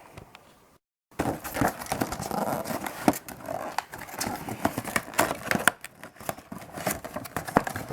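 Cardboard and plastic doll packaging being handled: irregular rustling, taps and clicks as the boxed doll is moved about. A short dead gap about a second in.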